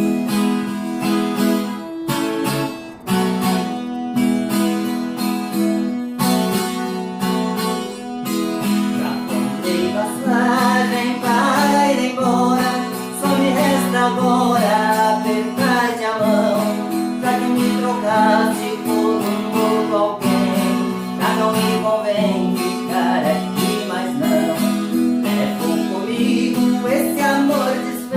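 Music: a strummed acoustic guitar playing steady chords, with a wavering melody line over it from about a third of the way in.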